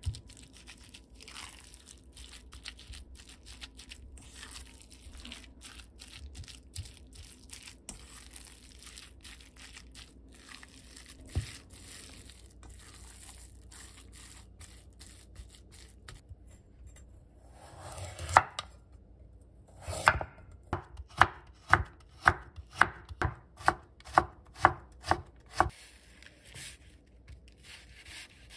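Faint scraping and squishing of a spatula mixing a ground-meat mixture in a stainless steel bowl, then, about two-thirds in, a chef's knife cutting onion on a wooden cutting board, about two sharp knocks a second for around six seconds.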